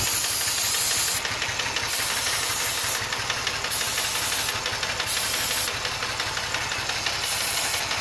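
Ford 3.0-litre V6 idling steadily with a little valve tap, while an aerosol can of starting fluid hisses in several short sprays of about a second each around the intake. The idle does not rise with the spraying, a sign that there is no vacuum leak.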